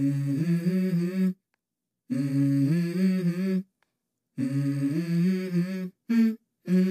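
Background music: a short hummed vocal phrase, stepping between a few low notes, repeated about four times with brief silent gaps between.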